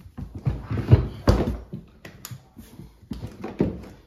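Latches on a hard plastic rifle case snapping open, a series of sharp clicks and knocks about every half second, as the case is unlatched and its lid lifted.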